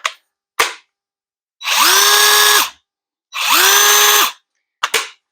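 Ryobi PCL265 18-volt 1/2-inch cordless impact wrench run twice for about a second each, on a 9 amp-hour battery, spinning up quickly to a steady whine. It is preceded by a couple of clicks, as the battery is latched in.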